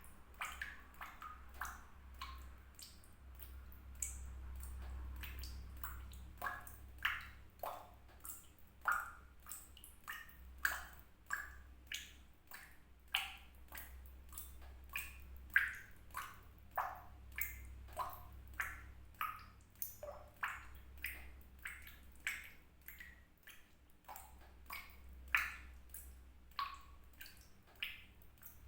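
Water drops dripping in an irregular stream, about one to two a second, each a short pitched plink at a different pitch.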